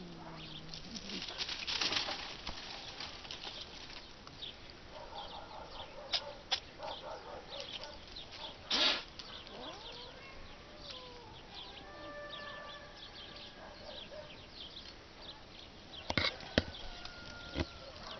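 Dry grass and twigs rustling and snapping in sharp, irregular crackles, with a few faint, drawn-out animal calls that glide up and down in pitch.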